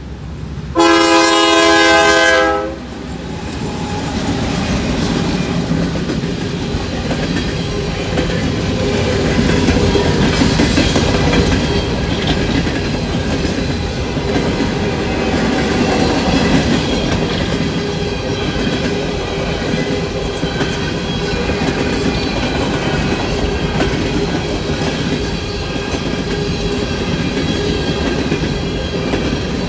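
Norfolk Southern diesel locomotive horn sounding one loud blast of about two seconds, about a second in. Then a freight train of coal hopper cars rolls steadily past close by, wheels clicking over the rail joints.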